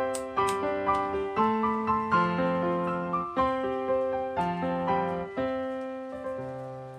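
Background piano music: single notes and chords struck a few times a second and left to ring, the playing thinning out and fading near the end.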